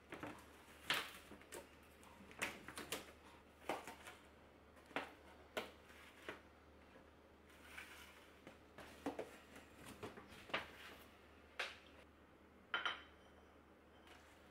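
Objects being handled at close range: irregular light clicks and knocks, a dozen or more, with one short ringing clink near the end.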